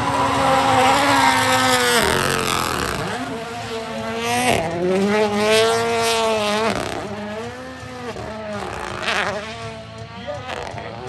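Toyota GR Yaris engine revving hard, its pitch rising and falling again and again as the car drifts in circles, over the hiss of spinning tyres.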